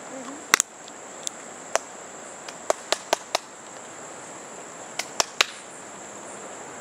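A steady high insect drone with about a dozen sharp clicks or snaps, coming in three clusters: two near the start, several in the middle, and three close together near the end.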